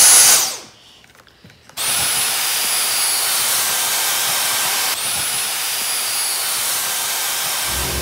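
Dyson cordless handheld vacuum running. It runs for a moment at the start, is switched on again about two seconds in, and runs steadily with a high motor whine as it spins up. Near the middle it cuts out for an instant and spins back up, then it is switched off near the end.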